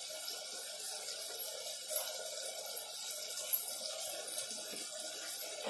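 Spice masala frying in oil in a pan on a gas stove, a steady faint sizzle, with a couple of light clicks about two and three and a half seconds in.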